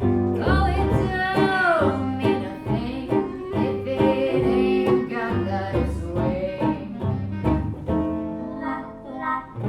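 Small band playing live, with a bass line underneath, a wavering melody with pitch slides on top, and a steady beat of short hits.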